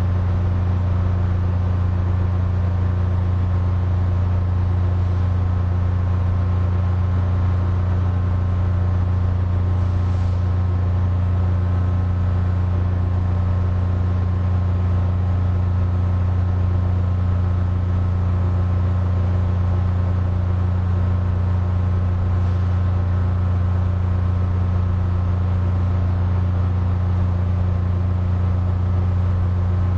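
Air conditioner running steadily: a constant low hum with a rushing hiss of air over it.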